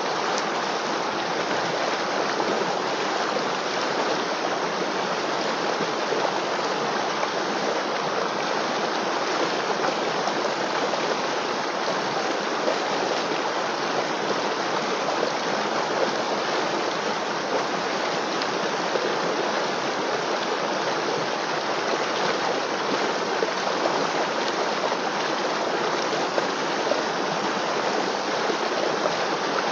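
River water flowing over rocks: a steady, even rushing and babbling.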